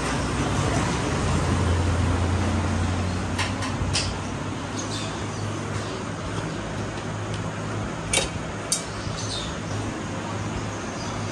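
Steel cooking utensils clinking against a large steel cooking pot and serving tray: four sharp clinks in two close pairs, over a steady low hum and background noise.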